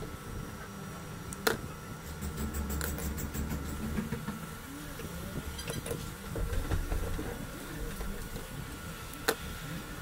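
Quiet room tone with a low steady hum, broken by two sharp small clicks, one about a second and a half in and one near the end, and faint handling noise in between.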